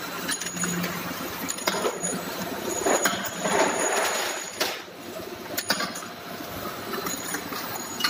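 Horizontal-spindle duplex surface grinding machine running, with coolant pouring and splashing through its magnetic separator and a steady low hum underneath. Sharp metallic clicks come now and then, about five in all.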